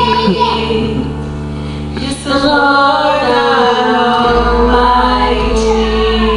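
A woman and a boy singing a worship song into microphones over instrumental accompaniment, holding long notes. The accompaniment's bass drops lower about four seconds in.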